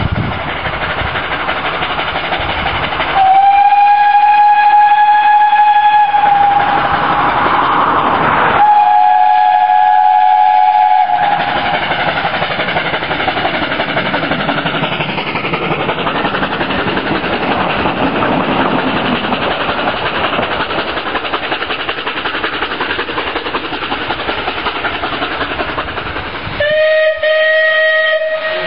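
Narrow-gauge steam locomotive blowing two long whistle blasts, each about three seconds, as its warning for an ungated level crossing, with the train's running noise between and after them as it passes. Near the end a shorter, lower-pitched steam whistle sounds from another locomotive.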